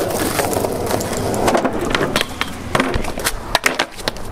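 Skateboard rolling over rough asphalt with a steady gritty wheel rumble. It is broken by a series of sharp wooden clacks as the board is popped and lands during flatground tricks, most of them in the second half.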